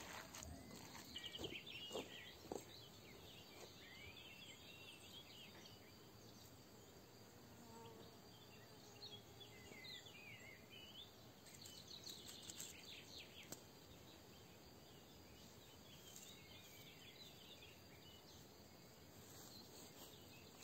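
Faint outdoor garden ambience with small birds chirping on and off in short twittering phrases.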